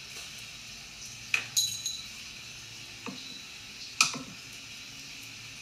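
A ceramic dog food bowl clinking as dry kibble is scooped into it and the dog eats from it: about five sharp clinks, one early pair leaving a brief bright ring, the loudest about four seconds in.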